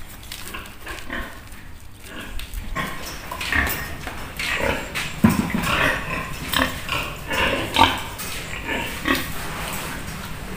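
Pigs grunting: many short calls in quick, irregular succession. They start about three seconds in, and the loudest comes near the middle.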